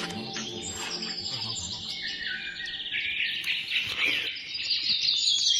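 Many birds chirping at once in a dense chorus of high, overlapping chirps.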